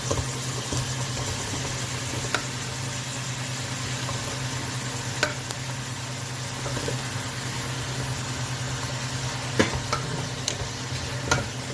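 Vegetables sizzling in a pan as they are stirred, with a few sharp clacks of the utensil against the pan, over a steady low hum.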